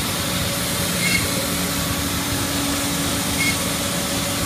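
Komo VR512 Mach 1 SHO CNC router running: a steady rushing machine noise over a low hum, with two brief high chirps about two seconds apart.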